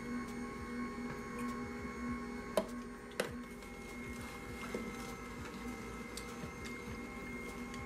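Amzchef slow masticating juicer running: a steady motor hum as the auger crushes pieces of carrot, bell pepper and pineapple. There are two sharp cracks, about two and a half and three seconds in.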